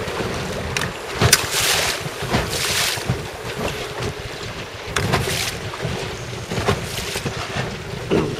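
Choppy sea water slapping and splashing against a small boat's hull in repeated swooshes, with wind buffeting the microphone and a low steady hum underneath.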